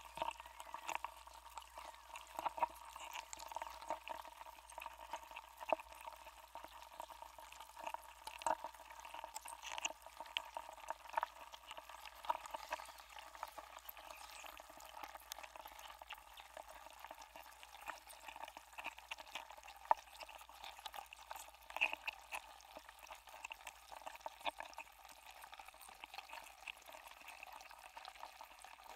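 A block of ice melting while submerged in water, heard through contact microphones frozen inside it: dense, irregular clicks and pops over a steady hiss.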